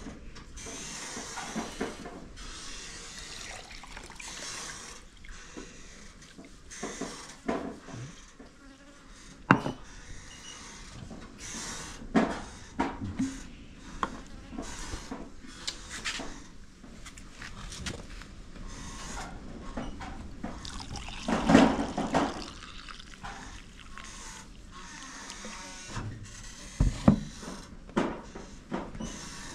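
Tea poured from a stainless-steel vacuum flask into a mug, with knocks and clicks as the flask and its cap are handled on a wooden table. The loudest clatter comes about two-thirds of the way through.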